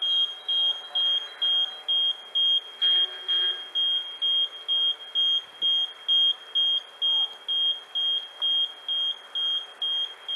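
Electronic warning beeper at a sea lock, sounding a single high-pitched beep about twice a second in an even rhythm, a little quieter near the end. It is the warning signal that goes with the lock and bridge barriers moving.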